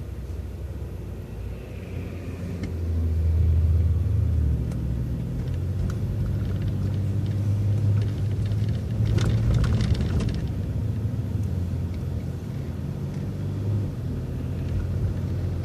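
City transit bus heard from inside the cabin, its engine running with a low drone that swells about three seconds in as the bus pulls harder, then holds steady. A short burst of rattling clicks comes about nine seconds in.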